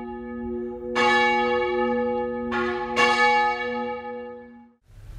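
Church bells ringing: strikes about a second in and twice more around three seconds in, each tone ringing on long after the strike, the sound fading away near the end.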